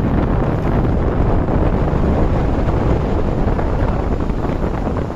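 Strong wind buffeting the microphone high up on an open lighthouse gallery: a steady, loud rumbling rush with no pauses.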